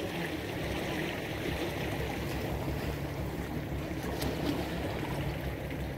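Low, steady hum of an idling boat motor over a haze of water and wind noise, with a few faint ticks.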